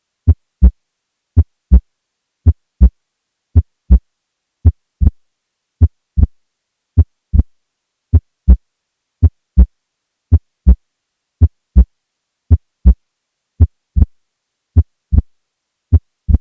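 Recorded heart sounds, about 53 beats a minute, each beat a pair of short low thuds (S1 then S2). The S2 has an unusually loud pulmonic component (P2), which is suggestive of pulmonary hypertension, in particular severe pulmonary hypertension.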